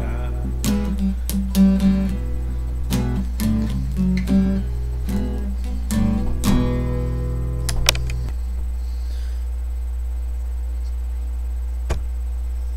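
Acoustic guitar strummed in a run of chords, the last chord damped short about eight seconds in. A steady low hum runs underneath, with a single click near the end.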